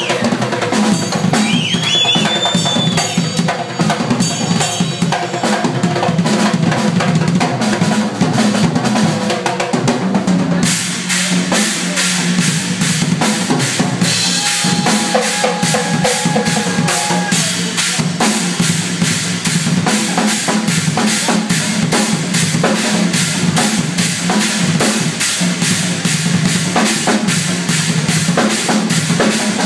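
Live rock drum kit solo: bass drum, snare, toms and cymbals played in dense, fast patterns. About ten seconds in, the cymbals grow louder and the hits settle into a more even, driving run.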